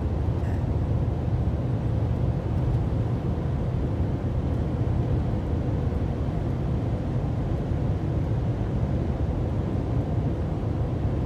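Steady road noise inside a car cruising at highway speed: tyre and engine drone heard as an even, unbroken low rumble.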